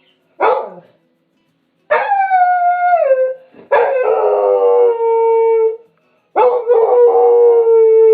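Dog howling: a short yelp, then three long howls in a row. Each howl starts higher, slides down in pitch and settles into a steady held tone.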